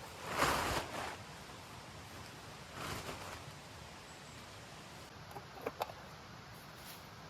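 Two short bursts of rustling, the first and louder lasting about a second and a weaker one about three seconds in, followed by a few light clicks near the end.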